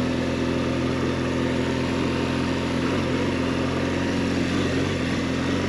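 BMW GS 1200 boxer-twin engine running at a steady, unchanging pitch while the bike is ridden in limp mode, held at low speed even with the throttle open.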